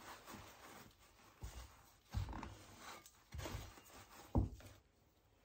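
Handling noises from a wooden lazy-Susan turntable being moved with gloved hands: four dull knocks about a second apart, the last the loudest, with faint rustling between them.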